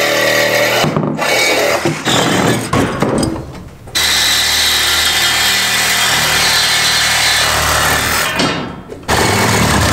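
Power tool cutting through old steel heating pipes, running steadily and stopping briefly twice.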